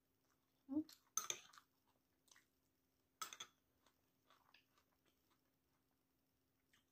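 Close-mic chewing of kwek kwek, battered deep-fried quail eggs: several sharp, wet chewing and biting sounds in the first three and a half seconds, then softer chewing that dies away.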